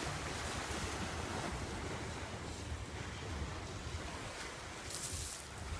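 Steady rush of sea surf with wind buffeting the microphone, and a brief louder hiss near the end.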